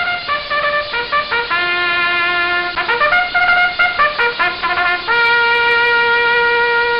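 A trumpet plays a short tune of quick notes with a longer low note partway through, then settles on a long held note for the last couple of seconds.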